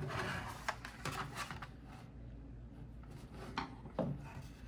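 Hard plastic router casing being handled and worked at: scraping and rubbing, then a few separate clicks and knocks.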